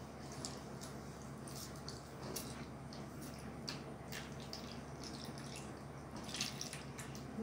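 Thick dark liquid poured from a plastic jug over rusty pliers in a plastic tub: faint dripping and small splashes scattered through, over a steady low hum.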